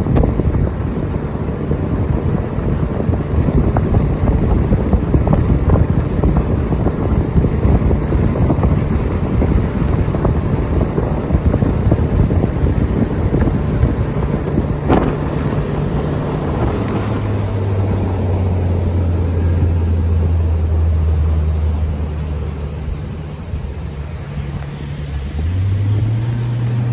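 A bass boat's engine running under way, with wind buffeting the microphone. About two-thirds of the way through, the engine drops to a lower, steady pitch and the wind noise eases. Near the end the pitch rises again.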